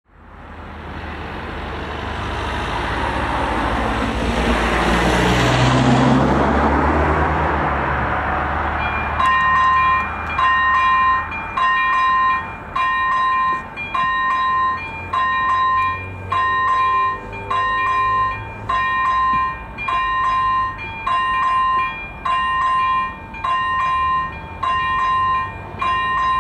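A vehicle passes by, its rush swelling and then fading away over the first several seconds. About nine seconds in, the electronic warning bell of a Czech AŽD 97 level crossing starts up: a two-pitch ding repeating about once a second, the signal that a train is approaching.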